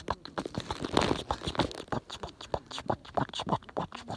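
Bonfire crackling: irregular sharp pops and snaps, with a denser flurry of crackles about a second in.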